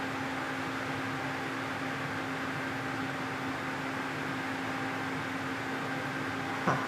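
Steady mechanical hum with a constant low tone, like electrical equipment or a cooling fan running. A single short click comes near the end.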